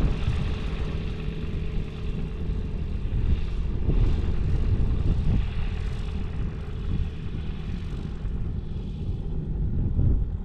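Single-engine light aircraft's propeller engine running steadily as the plane moves across the grass airfield, fading over the last couple of seconds. Strong wind buffets the microphone throughout.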